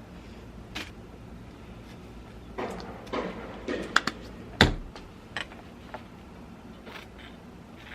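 Household handling sounds: a few light clicks and rustles, with one sharper knock a little past halfway.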